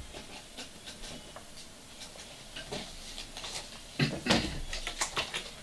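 A metal drink tumbler set down with a knock on a stone countertop about four seconds in, followed by a few light clicks; scattered small handling clicks before it.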